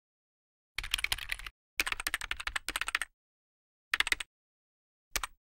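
Quick typing on a computer keyboard in short bursts: a run of keystrokes about a second in, a longer run right after, a short run about four seconds in, and one brief click near the end, with dead silence between them.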